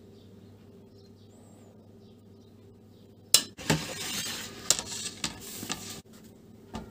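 A sharp clink a little before halfway, then about two seconds of rustling with several more clinks as a hand handles a stainless steel bowl of seasoned pork pieces. One more clink comes near the end.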